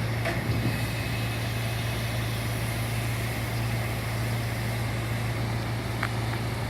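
Heavy diesel engine of the construction machinery running steadily, a low even drone, with a couple of faint ticks near the end.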